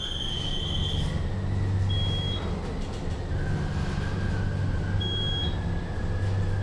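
Schindler hydraulic elevator rising: the pump motor's low hum with a whine that climbs in pitch as it starts and then holds steady. A high beep sounds at the start and two short ones follow, about two and five seconds in.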